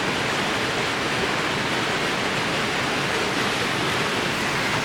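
Steady, loud rush of a waterfall pouring into a pool, an even noise with no change through the stretch.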